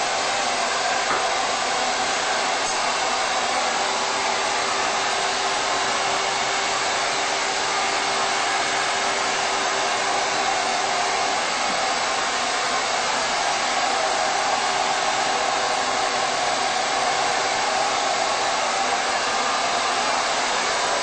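Handheld hair dryer running steadily as hair is blow-dried, a constant rush of air with a faint hum underneath.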